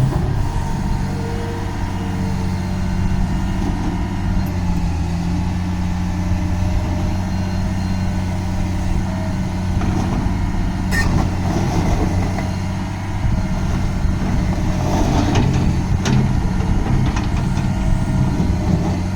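Diesel engine of a Liebherr R944C-LC hydraulic excavator running steadily, with a few sharp knocks about eleven seconds in and again around fifteen to sixteen seconds.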